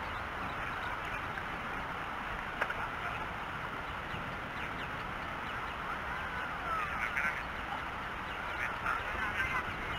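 Water birds giving short calls now and then, more of them in the second half, over a steady outdoor hiss of wind and water, with a single sharp click about two and a half seconds in.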